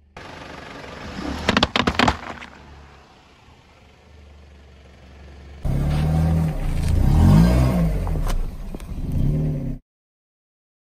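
A car running over objects on asphalt: a quick run of crackling crunches about two seconds in, then, after a cut, the car's engine running while its body bears down on a large rubber duck, with low tones sliding up and down. The sound cuts off suddenly near the end.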